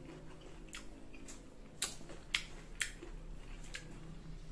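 Close-up chewing of crisp green mango: a run of sharp wet mouth clicks and crunches, about one every half second.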